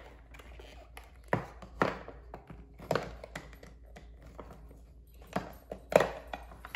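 Plastic display box and cardboard sleeve of a pyraminx speed cube being handled and opened: a handful of sharp taps and knocks, the loudest near the end.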